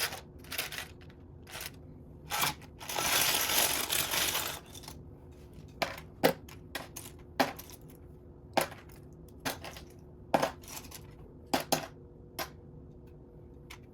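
Small plastic Lego pieces clicking against each other and the table, with a rattling clatter of about a second and a half, about three seconds in, as a pile of pieces is rummaged through.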